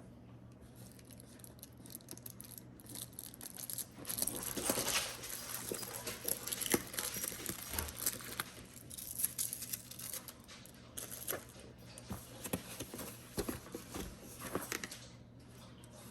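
Rustling and scattered clicks and knocks as a keyboard's box and packaging are handled and opened. The sound picks up about four seconds in and eases off near the end.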